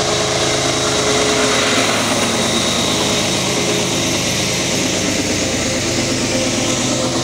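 GE ES44ACi diesel-electric locomotive with its GEVO-12 V12 diesel at full throttle (notch 8), working as a pusher on a heavy iron-ore train up a steep grade. It makes a loud, steady engine sound with a steady high whine over it.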